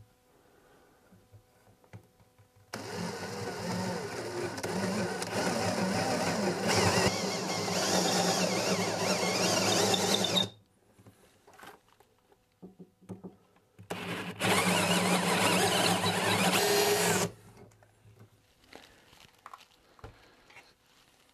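Power drill boring a mortise hole into a walnut chair leg: one long run of steady drilling for about eight seconds, a pause, then a second shorter run of about three seconds.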